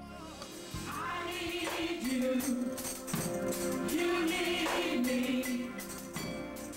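Gospel song with singing voices over a shaken tambourine.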